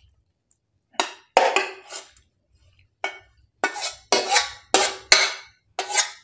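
Metal spoon scraping and knocking against the inside of a metal pot as the last of a curry is scraped out: about ten sharp clinks with a short ring, in uneven groups.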